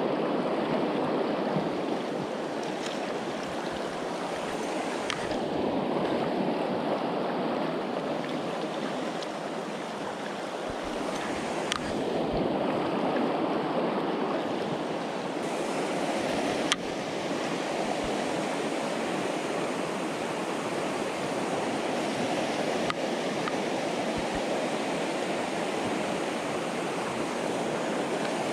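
River water rushing steadily, with a few faint clicks here and there and one small knock about two-thirds of the way through.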